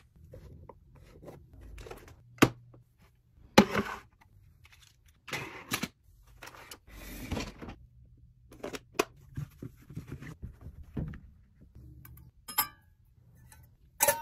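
Toys being handled and set in place: a string of sharp plastic knocks and clicks with short rustling scrapes between them. Near the end come two brief metallic rings, the last as a small stainless steel toy pot is hung on a metal rail.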